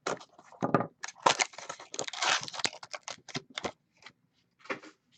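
Trading-card box and its pack wrapper being torn open and handled: a quick, irregular run of tearing and crinkling with sharp clicks, thinning out near the end.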